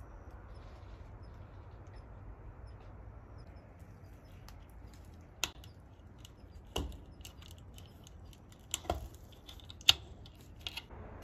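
Sharp metal clicks as a slim pick pries out the staples holding insect-screen mesh to a wooden frame: about five clicks, irregularly spaced, in the second half, over a low steady background.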